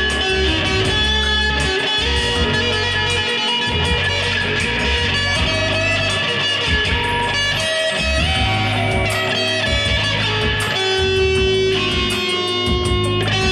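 Electric guitar played through an amplifier: a slow lead line of long held notes, over a steady deep bass part that drops out briefly a few times.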